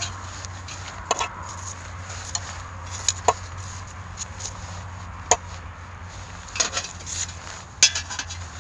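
Metal tongs clacking against the shichirin's grill and a metal grill tray as roasted makomodake are lifted off and laid down: about half a dozen sharp, irregular clicks with a short ring.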